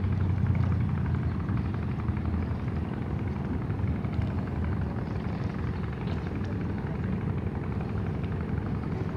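Boat engine running steadily, a low drone with no change in speed.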